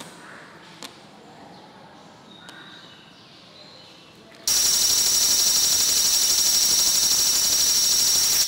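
A drill press boring into a small steel block clamped in a vise: a loud, steady, high-pitched cutting whine that starts suddenly about halfway through. Before it there are only a few faint light taps.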